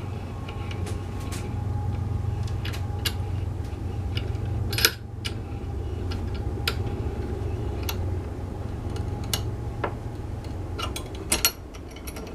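Scattered metallic clicks and clinks of a Yost 3-inch table vise being handled and its jaw wound open, with a louder clank about five seconds in and a pair near the end, over a steady low hum.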